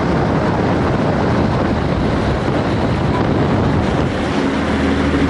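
Wind buffeting the microphone and water rushing past a moving boat, over the boat's engine. About four seconds in, a steady engine drone comes through more clearly.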